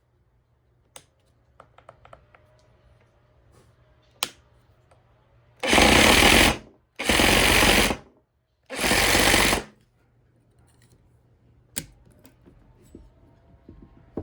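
Makita XRJ04 cordless reciprocating saw triggered in three short runs of about a second each, its blade stroking rapidly, with a few small clicks from handling between runs.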